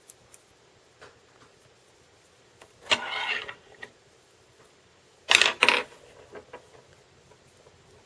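Close handling noises while fly-tying wire is fetched: a scraping rustle about three seconds in, then two short, sharp scrapes in quick succession about five and a half seconds in.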